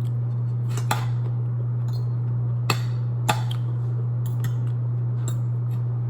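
A few short clicks and taps of utensils against a plate while eating, the clearest about a second in and twice around three seconds in, over a steady low hum.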